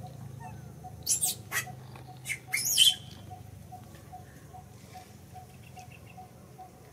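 Baby macaque monkey giving a few short, shrill squeals between about one and three seconds in, the last one bending in pitch. A faint, regular ticking runs underneath, about two or three beats a second.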